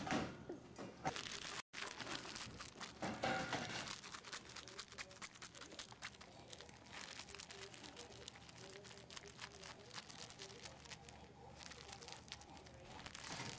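Continual plastic crinkling and rustling as English bulldog puppies chew and paw at a crinkly toy.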